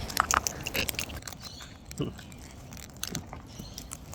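Sulphur-crested cockatoos cracking and chewing seed with their beaks: scattered sharp clicks and crunches, thickest in the first second and sparser after.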